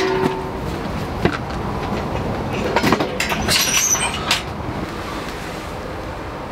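Portable kerosene stove being carried and set down on a wooden table: its metal body and handle clink and knock, most densely about three to four seconds in, over a steady low rumble.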